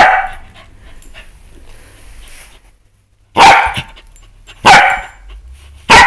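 Pembroke Welsh corgi barking: one bark at the very start, then after a quiet couple of seconds three sharp single barks about a second apart.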